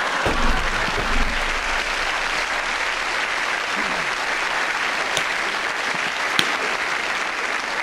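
Theatre audience applauding in a steady, sustained round.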